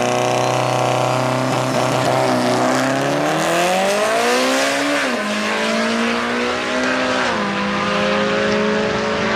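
Eagle Talon's four-cylinder engine at full throttle on a drag-strip pass. It revs up through each gear, with sudden drops in pitch at upshifts about five and seven seconds in.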